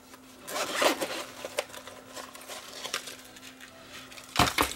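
A zippered hard-shell carrying case being unzipped and opened, with a rustle and small clicks from the tools inside, then a short thump near the end as the case is set down on a wooden workbench.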